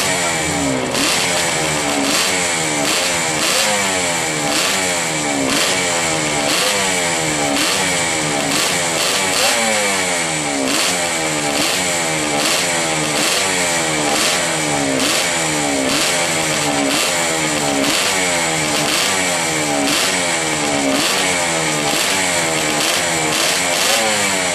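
Yamaha TD2 250cc two-stroke twin racing engine being warmed up: the throttle is blipped over and over, the pitch rising and falling back about every three-quarters of a second.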